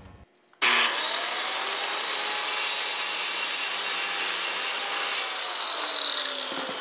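Corded circular saw starting up about half a second in and cutting through a wooden channel strip, a steady motor whine over the rush of the blade in the wood. After about five seconds the trigger is released and the whine falls as the blade spins down.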